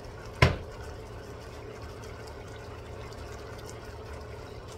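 Broth simmering in a wok, a steady bubbling hiss, with one sharp clack about half a second in.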